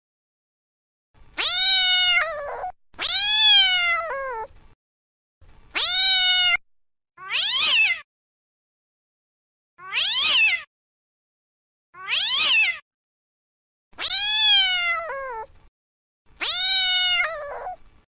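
Domestic cat meowing over and over, about eight separate meows with short silences between. Most are drawn-out meows that fall in pitch at the end, and three in the middle are higher and thinner.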